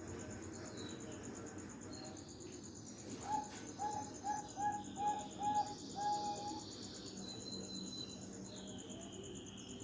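Zebra dove (Bangkok-bred perkutut) cooing: one phrase of about seven short, evenly spaced soft notes a little after three seconds in, over a steady high cricket trill.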